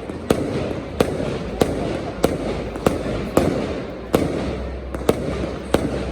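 Fireworks display going off: a quick series of sharp bangs, about one every half second, over continuous crackling and a low rumble.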